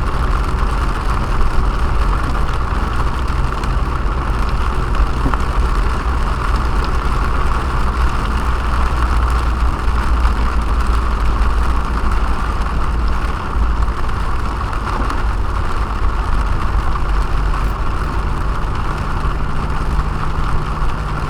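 Car driving in heavy rain, heard from inside the cabin: a steady low engine and road rumble with an even hiss of rain and wet tyres.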